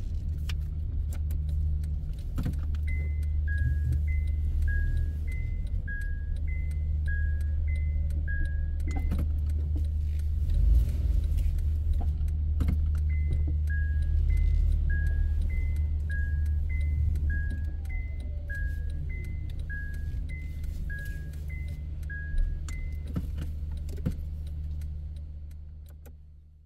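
Car cabin with the engine idling steadily while an electronic two-tone beep alternates high and low, a little under twice a second. The beep comes in two runs: about six seconds a few seconds in, then about ten seconds later. This is typical of a car's reverse-gear warning while backing into a parking space.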